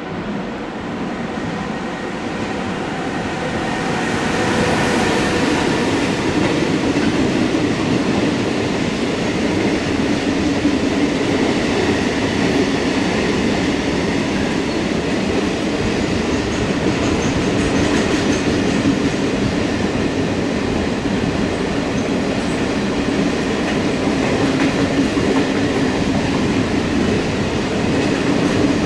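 Container freight train hauled by a Renfe class 253 electric locomotive passing close by. The sound grows over the first few seconds as the locomotive arrives, then holds as the steady rolling and rattling of loaded container wagons over the rails.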